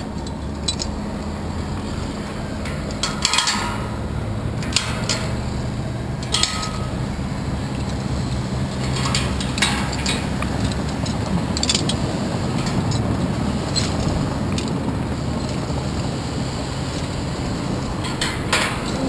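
Steady wind rushing over the microphone, with irregular metallic clinks every second or two as steel carabiners and lanyard hooks knock and clip against the tower's steel lattice during the climb.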